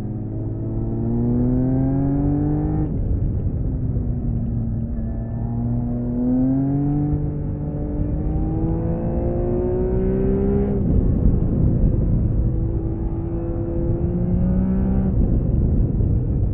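1979 Honda CBX 1000's air-cooled 1047 cc inline-six on its stock exhaust, accelerating hard with rising pitch. It shifts up about three seconds in, again about eleven seconds in and once more near the end, each shift dropping the pitch sharply. Wind rush runs underneath.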